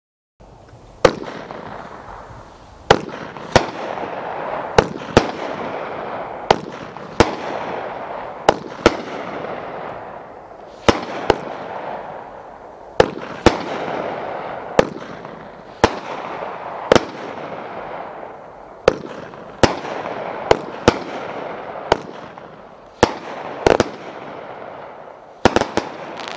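Red Rhino 'Muscle Car Classics – Chevelle' consumer fireworks cake firing. Sharp aerial-burst reports come every half second to two seconds from about a second in, each followed by a fading hiss, with a quick run of shots near the end.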